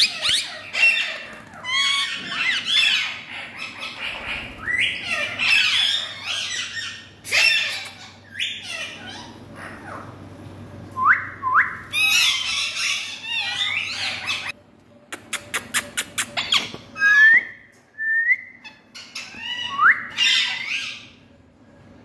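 Indian ringneck parakeets squawking in harsh, repeated bursts, mixed with short rising whistled chirps. Near the middle comes a quick run of about eight sharp clicks.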